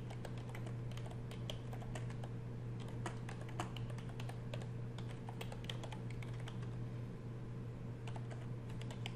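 Typing on a computer keyboard: a quick, irregular run of key clicks over a steady low hum.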